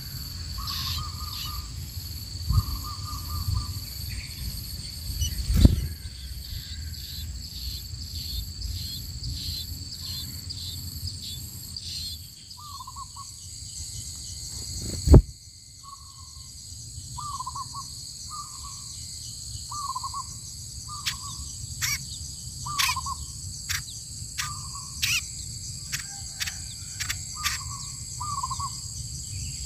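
Steady high drone of crickets and other insects, with a bird calling short, even notes roughly once a second through the second half. A sharp thump about halfway through is the loudest sound.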